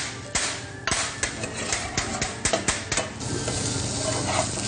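Kitchen knife slicing quickly on a chopping board, about four knocks a second. About three seconds in, the knocks stop and a steady frying sizzle takes over.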